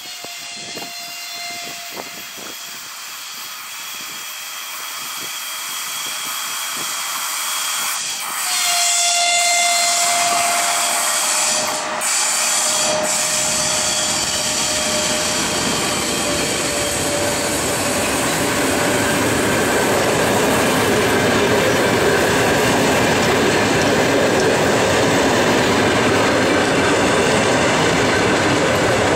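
An EP1M AC electric locomotive and its passenger express approach and pass close by. The running noise grows steadily louder, with a whine from the locomotive that sags slightly in pitch as it goes by. The coaches' wheels then roll past on the rails with a steady loud rushing.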